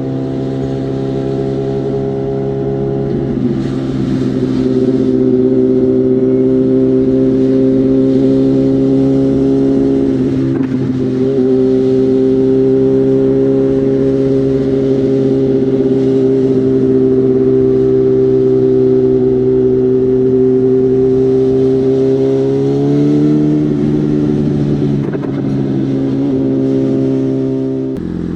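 BMW M1000R's inline-four engine running through a genuine SC Project S1 slip-on exhaust while riding along at a steady cruise, the exhaust note holding an even pitch for long stretches. The note breaks briefly about ten seconds in and shifts pitch again a few seconds before the end, as with gear changes or throttle changes.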